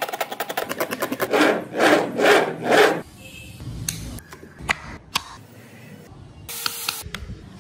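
A fast run of rasping strokes, then four long scraping strokes, followed by scattered sharp clicks and taps and a short hiss near the end.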